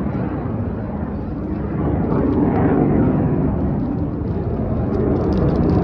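Jet noise from the Black Eagles' T-50B jets flying over, a broad low rush that swells about two seconds in and again near the end.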